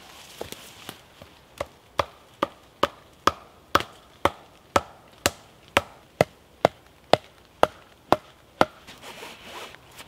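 A wooden peg being knocked into the ground with a short log used as a mallet: a steady run of about sixteen wooden knocks, roughly two a second, starting about a second and a half in and stopping shortly before the end.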